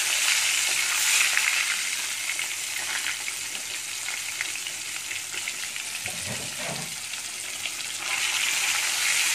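Four turmeric-coated boiled eggs frying in hot oil in a karahi: a dense, steady sizzle and crackle that eases a little midway and grows louder again near the end.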